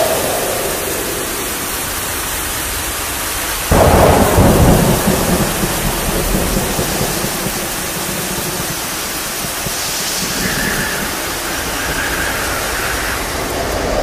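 Steady rain with a clap of thunder about four seconds in that rumbles and dies away over a second or two.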